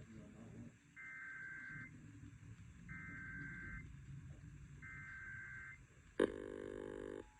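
Emergency Alert System test over FM radio: three short bursts of warbling digital data tones, the SAME header, each about a second long and about two seconds apart. About six seconds in, a sudden loud, harsh buzzing tone begins: the start of the alert's attention signal.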